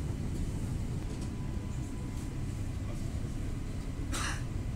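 Steady low rumble of a passenger train running, heard from inside the carriage. A short sharp noisy burst stands out about four seconds in.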